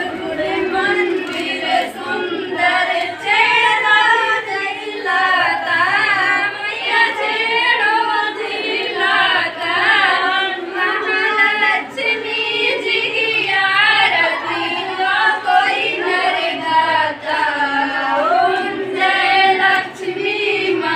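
A group of children and women singing a devotional aarti song together, the sung melody continuous.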